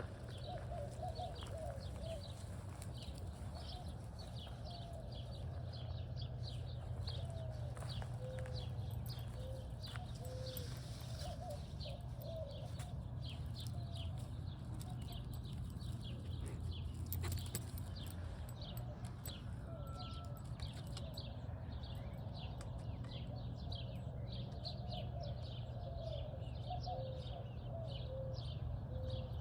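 Many small birds chirping continuously in quick short notes, with lower, curving calls from another bird repeating at intervals, over a steady low rumble.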